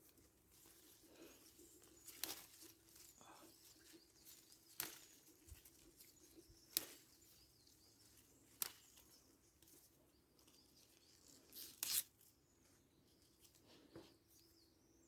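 Chili peppers being picked by hand: faint rustling with a few short, sharp snaps of stems breaking, the loudest near the middle and about two-thirds of the way through.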